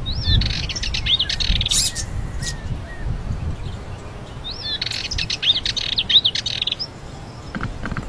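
Male Sardinian warbler singing two short bursts of fast, scratchy chattering song, each under two seconds long, with a few quick up-and-down whistled notes, about four seconds apart.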